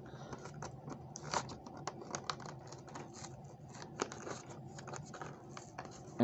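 Hands working at the cardboard-and-plastic packaging of a Matchbox toy-car five-pack, trying to get it open. It gives irregular small scratches and clicks, with a few sharper snaps.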